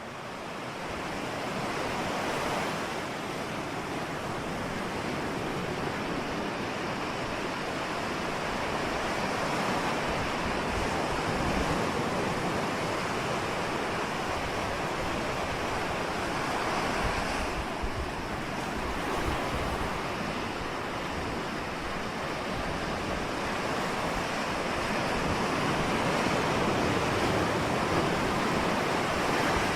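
Ocean surf: waves washing and breaking in a steady rush, swelling and easing gently.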